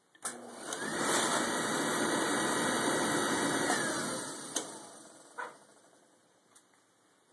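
A faulty oil furnace's burner firing: a sharp click, then a loud, even rush that swells about a second in, holds for about three seconds and fades away, with a couple of knocks as it dies down.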